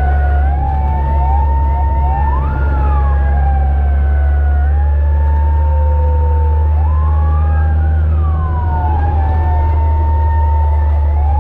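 Fire truck sirens wailing, heard from inside the cab: slow rising and falling tones overlap with quicker upward sweeps, over a steady low engine rumble.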